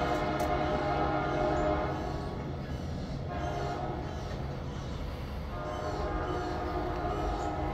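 Amtrak train's horn sounding a long chord that stops about two seconds in, then blowing again from about five and a half seconds in, over a steady low rumble from the train.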